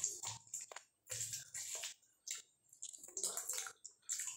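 Wet squishing of rice mixed with dal as fingers knead and scoop it on a plate, with close-up chewing, in short irregular bursts.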